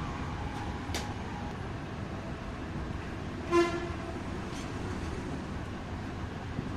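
Steady low background rumble with one short horn toot about three and a half seconds in, and a couple of faint clicks.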